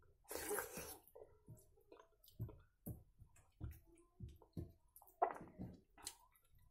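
A person eating soft, starchy rice by hand. A wet slurp comes as a mouthful goes in about half a second in, followed by short chewing sounds roughly every half-second and the squish of fingers mixing wet rice on a steel plate.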